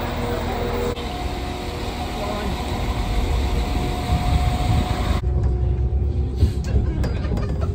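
Train running, a steady low rumble with a faint steady whine; the sound changes abruptly about five seconds in.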